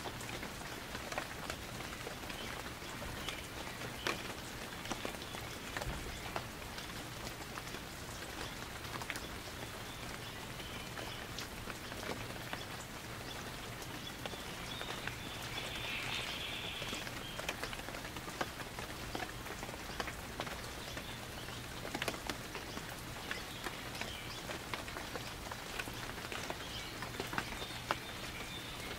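Steady rain falling, with scattered individual drops ticking sharply close by.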